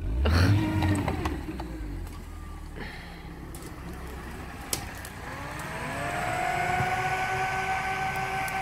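Lada Niva's four-cylinder engine driving off-road: a sudden burst of revs at the start that dies down, then about halfway through the engine note rises over a second or so and is held high and steady.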